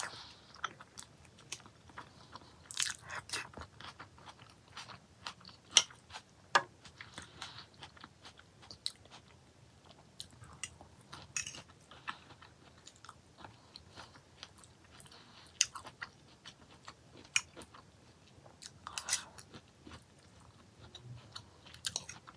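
Close-up eating sounds: chewing and biting a mouthful of salad of boiled egg and sweetcorn, with many short, sharp clicks scattered through it.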